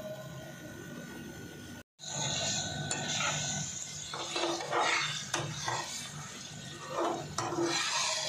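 Metal spatula scraping and knocking against an aluminium pan as the takatak mixture of chopped chicken offal and egg is stirred and chopped, in a run of short strokes. The sound drops out for an instant about two seconds in.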